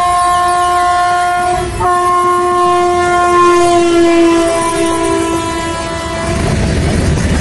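Indian Railways WAG-9 electric freight locomotive sounding its horn in two loud blasts, a short one and then a long one, its pitch dipping slightly as it passes close by. About six seconds in the horn stops and the rumble of freight wagons rolling past takes over.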